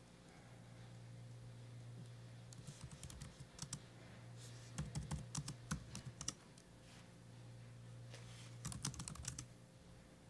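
Typing on a computer keyboard: three short runs of keystrokes entering terminal commands, over a low steady hum.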